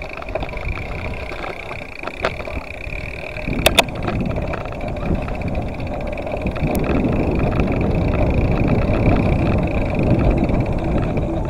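Wind rushing over an action camera's microphone and tyre rumble from a mountain bike rolling downhill on a rough road. The noise grows louder after a few seconds as the bike picks up speed, with a few sharp clicks and rattles from the bike along the way.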